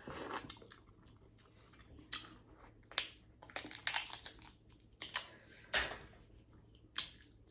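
Snow crab shell cracking and crunching as it is broken open and the meat eaten: a run of about seven short, sharp crackles, with chewing.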